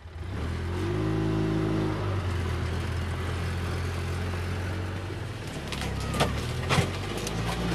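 Ranger side-by-side utility vehicle's engine picking up revs about half a second in, then running steadily, with a few sharp knocks and clicks near the end.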